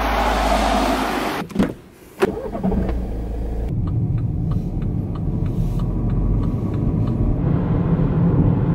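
A car driving, its engine and road rumble steady as heard from inside the cabin. About a second and a half in, two short knocks come before the rumble settles in.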